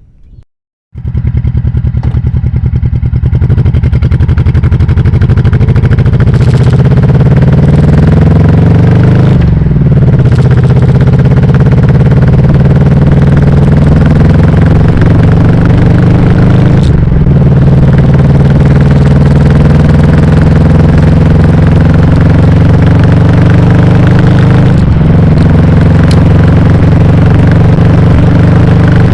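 1998 Honda Shadow VT1100T's 1100 cc V-twin engine pulling hard through the gears: the pitch climbs steadily, then drops sharply at each of three upshifts. It comes through very loud on a lapel mic clipped to the sissy bar, too much gain for the mic.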